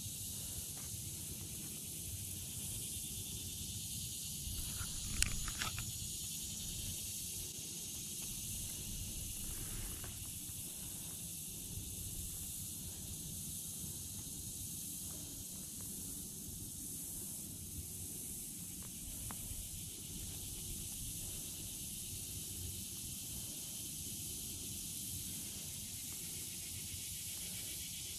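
Steady outdoor ambience: an even high-pitched hiss over a low, uneven rumble, with a brief rustle about five seconds in.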